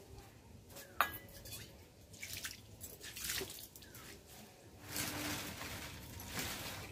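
Water poured from a steel tumbler splashing and dripping over a stone grinding slab as it is rinsed, with one sharp knock about a second in.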